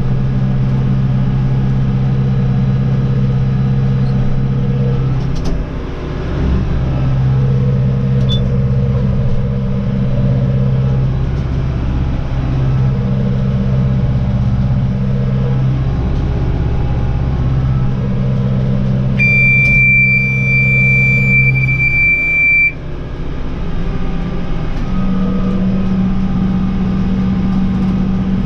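Tractor engine running under load while pulling a mini roll baler; its pitch and strength swell and ease every few seconds. About two-thirds of the way through, a high electronic warning buzzer sounds steadily for about three and a half seconds, then stops abruptly.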